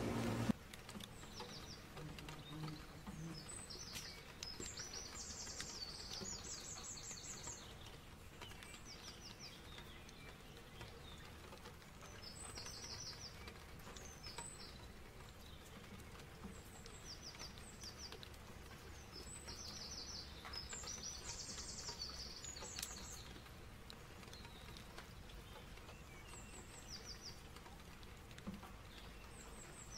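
Small birds chirping in clusters of quick, high, repeated notes, loudest in two longer bouts, over a faint steady outdoor ambience. This is a stock birdsong track.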